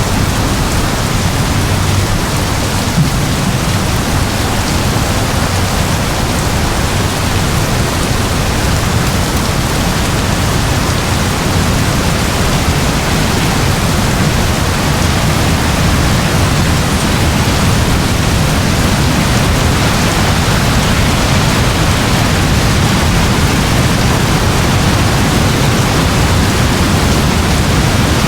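Steady forest rainfall: an even, unbroken hiss of rain with a strong low rumble underneath.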